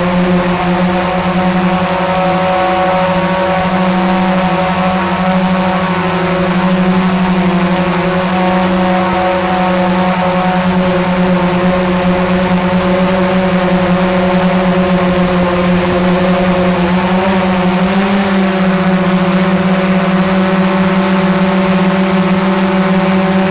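Quadcopter drone's propellers and motors humming close up to a camera mounted on the drone: a steady, loud drone with a stack of overtones, the pitch wavering briefly about three quarters of the way through.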